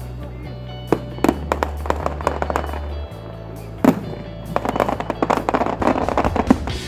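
Fireworks going off: a few separate sharp bangs, then a dense crackling of many small reports from about halfway through. Music with steady low bass notes plays alongside.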